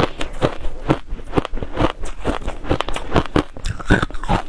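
Crushed shaved ice being chewed, a steady run of crisp crunches about two a second.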